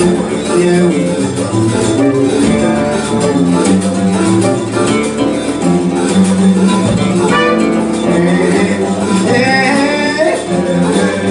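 Live band playing together: keyboard, saxophones, drum kit, congas and guitars in a steady, dense groove.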